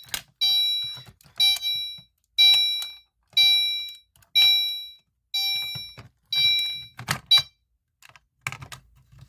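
Fire alarm notification appliance sounding a continuous chime pattern: a bright, ringing chime tone about once a second, each one fading away after the strike. It stops about seven seconds in, followed by a few clicks.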